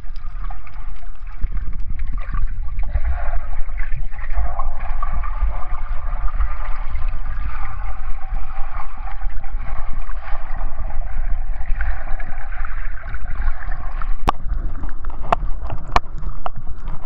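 Muffled rushing and gurgling of water picked up underwater by a submerged action camera, steady throughout with a deep rumble, and a few sharp clicks in the last few seconds.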